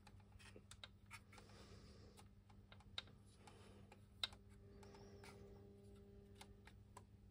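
Near silence with faint, scattered clicks and taps of hard plastic as the G.I. Joe Tiger Cat toy vehicle is turned over in the hand; two slightly sharper clicks come about three and four seconds in.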